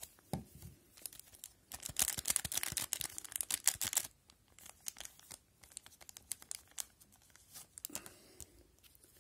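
Hockey card pack wrapper being torn open, with a dense run of crinkling and tearing about two seconds in. After that come lighter, scattered crinkles and clicks as the cards are handled and slid out.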